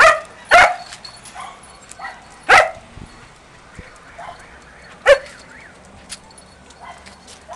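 Dog barking: a few sharp single barks, three loud ones roughly two seconds apart.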